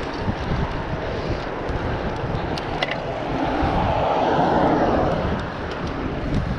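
Wind buffeting the microphone of a camera on a moving bicycle, with tyre and road rush underneath. A broader rushing sound swells and fades between about three and five seconds in, like a vehicle passing on the highway below, and a few light clicks come just before it.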